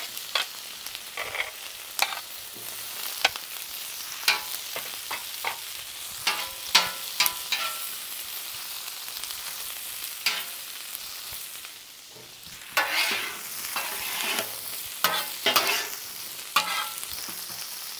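Chopped onions, bell peppers and broccoli sizzling in oil on a Blackstone flat-top griddle turned to low, with many sharp clicks and scrapes of metal tongs and spatulas on the steel as the vegetables are dropped on and tossed.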